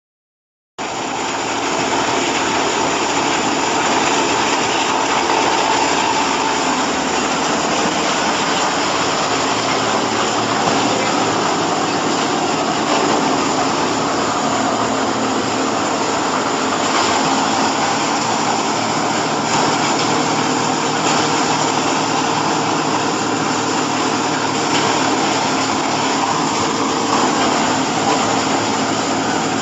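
Hydraulic bagging baling press for chopped hay running, a steady, loud machine noise. It cuts in suddenly about a second in and holds without change.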